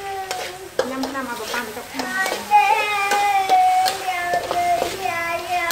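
Metal spatula scraping and knocking against a steel wok as chicken organs are stir-fried, with a light sizzle of oil. Over it, a high voice sings long held notes, and the singing is the loudest sound.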